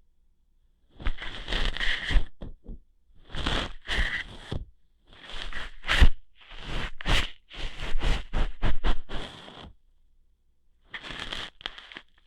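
Ear-hair plucking ASMR sounds: crackly scratching and sharp snapping close on the microphone. They come in five bursts of one to three seconds, with a pause a little before the end.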